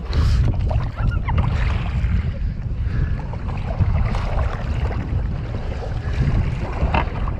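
Wind buffeting the action-camera microphone in a heavy, steady low rumble while a kayak paddle strokes and splashes through choppy water, with one sharp knock right at the start.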